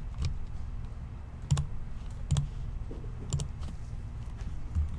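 Clicking at a computer: a handful of sharp single clicks spaced about a second apart, with a few fainter ones between them, as the randomizer is set up.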